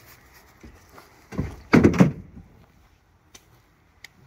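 A deer carcass is heaved up and dropped, landing with heavy thuds: one thump about a second and a half in, then a louder cluster of thuds just after, followed by a few faint knocks near the end.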